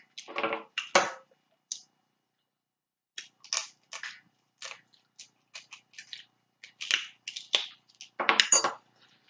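Snow crab shells being cracked and eaten: an irregular string of sharp cracks and snaps, with a couple of denser bursts of eating noise near the start and near the end.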